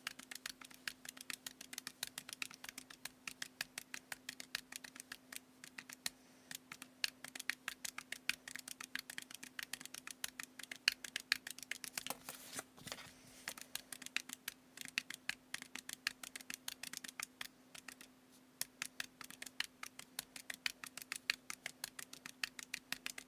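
Casio desktop calculator keys clicking rapidly as a long column of figures is punched in, several presses a second, with a brief rustle of paper a little past halfway. A faint steady hum runs underneath.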